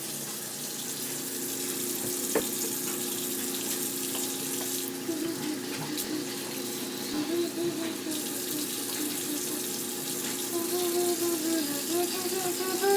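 Kitchen sink tap running steadily, water splashing into the sink as hands are washed, with a single sharp knock about two seconds in.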